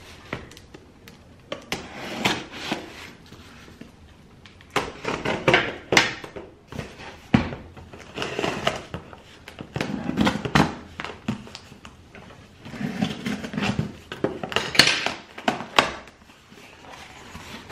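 Scissors slitting the packing tape along a cardboard box, then the cardboard flaps being pulled open: a run of irregular scrapes, snips and crinkles.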